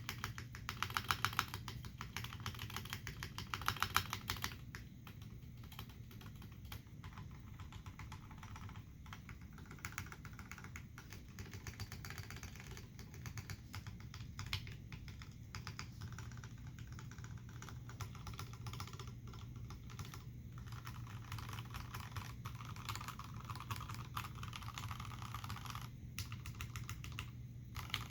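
Typing on an Iron180 mechanical keyboard with Hirose Cherry MX Clear tactile switches, lubed and filmed, in a brass-bottomed case with a forged carbon-fibre plate and Cherry dye-sublimated keycaps. The keystrokes come fast and dense, loudest in the first few seconds, then settle into steadier, lighter typing.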